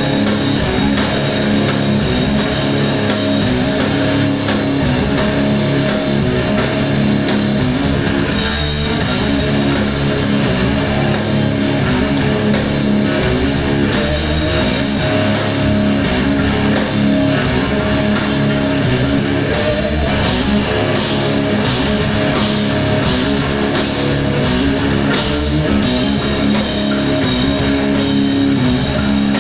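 Live rock band playing: electric guitars, bass guitar and drum kit together at a steady loud level, with cymbal strikes standing out about two-thirds of the way through.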